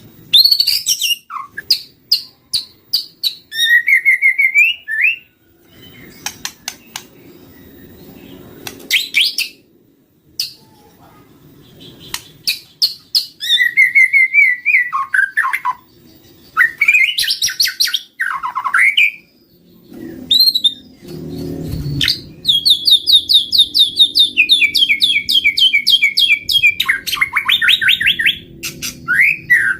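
White-rumped shama (murai batu) singing: a varied run of whistled phrases, sliding notes and sharp calls. Past the middle it breaks into a long, fast chattering trill that steps down in pitch. This is the kind of song played as a lure (pikat) to draw in wild shamas.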